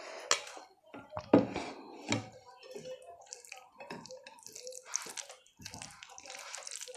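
Close-miked chewing and wet mouth sounds of a person eating, a string of small clicks and smacks, with a louder knock about a second and a half in.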